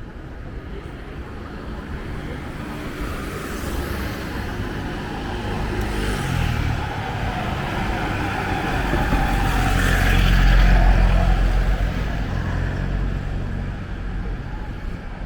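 A motor vehicle passing close by on the street: engine and tyre noise build up, are loudest about ten seconds in, then fade away.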